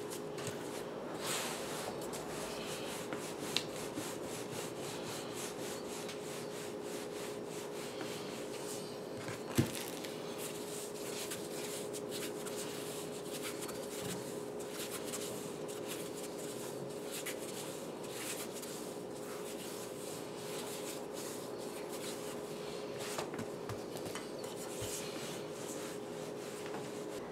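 Wooden rolling pin rolling out pizza dough on a plastic cutting board: faint rubbing and rolling, with two sharp knocks about three and a half and ten seconds in, over a steady low hum.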